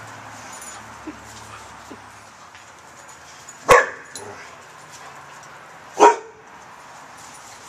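A dog barks twice, two short sharp barks about two seconds apart.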